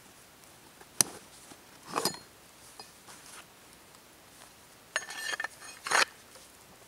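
A hatchet being drawn from a canvas pack and handled: a sharp click about a second in, a short clinking rustle at two seconds, then the loudest part, a quick run of metallic clinks and rustles around five to six seconds in.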